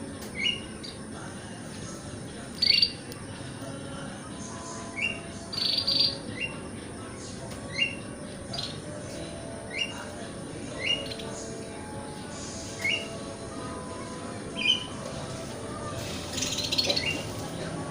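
Oriental magpie-robin (kacer) calling: short rising whistled notes about every second or two, with a few louder, higher notes in between and a quick run of notes near the end.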